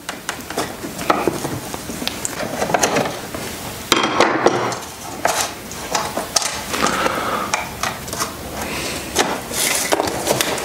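Pry bar blade and fingers working a car's headlight switch loose from the dash cluster panel: irregular scraping, rubbing and small metal-on-plastic clicks as the switch is spun out, with a sharper clack about four seconds in.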